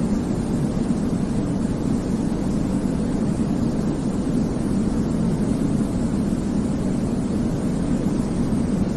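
Steady, unchanging white-noise sleep sound for babies, a deep, muffled rush weighted toward the low end, with no breaks or changes in level.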